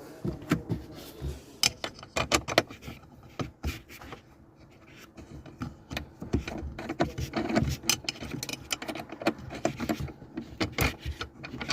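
A 5 mm Allen key working screws out of a car's interior trim panel: irregular metallic clicks, rattles and scraping as the key turns and shifts in the screw heads.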